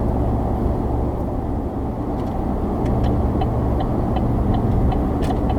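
Pickup truck towing a fifth-wheel trailer, heard from inside the cab at highway speed: a steady low engine and road rumble with tyre noise. From about two seconds in, a faint, even ticking comes in at about three ticks a second, like a turn signal.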